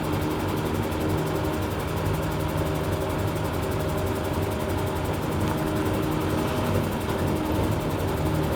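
Engine of a pothole-patching machine running steadily, a constant hum with a noisy rush over it, as it blows crumb stone into potholes under pressure.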